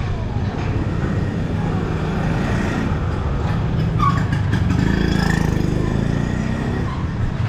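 Busy street noise: a steady low rumble of motor vehicle engines, swelling for a couple of seconds in the middle, with scattered voices of a crowd.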